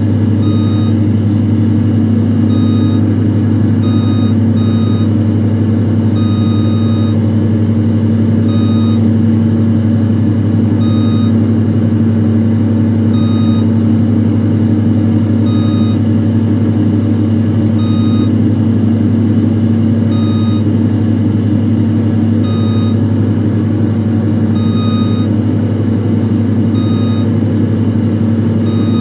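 Steady, loud low hum of data-centre machinery, overlaid with short high electronic beeps that come every one to two seconds at uneven spacing.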